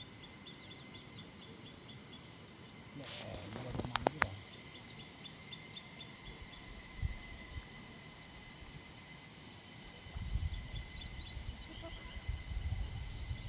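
Insects chirping and trilling: a steady high buzz with short chirps repeated several times a second. About three seconds in, a brief swell of noise ends in two sharp clicks, and a low rumble comes in for the last few seconds.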